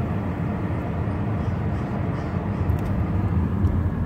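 Steady road and engine noise of a car driving slowly, heard from inside the cabin, mostly a low rumble.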